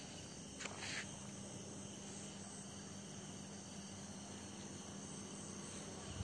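Faint, steady night chorus of crickets, with a low steady hum underneath and a brief soft rustle about a second in.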